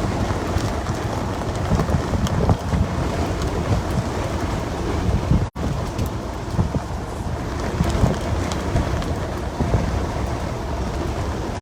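Steady rumble and hiss of a vehicle driving along the road, heard from inside the cabin. The sound cuts out for a split second about halfway through.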